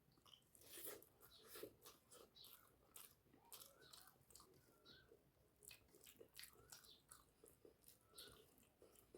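Faint, close-up mouth sounds of a person eating rice and curry: irregular wet chewing, lip smacks and small crunchy bites.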